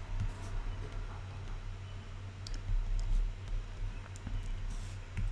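A few light clicks of a stylus tapping a tablet's glass screen while drawing, over a steady low electrical hum.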